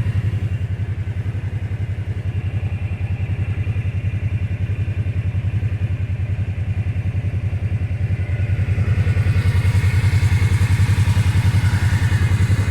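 2022 Kawasaki Teryx 800 side-by-side's parallel-twin engine idling with an even, steady beat, getting a little louder in the last few seconds.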